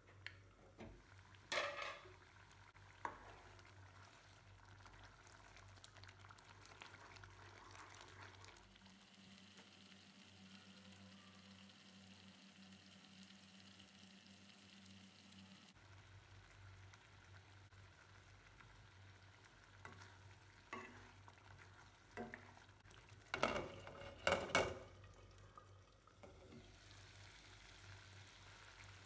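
Faint sizzling of food frying in a pan, with a few sharp knocks of a spoon or spatula against the pan, the loudest cluster about 23 to 25 seconds in. A low steady hum sounds for several seconds in the middle.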